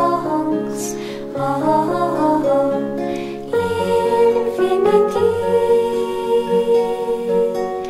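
Music: a slow, gentle devotional song sung by a group of women over instrumental accompaniment, with one long note held through the middle.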